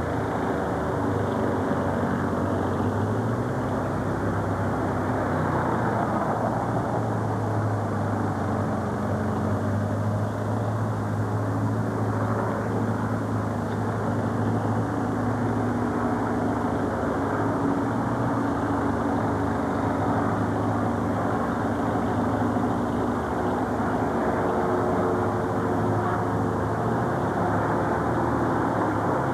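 A vehicle's engine running steadily: a continuous even drone with a low hum that does not break.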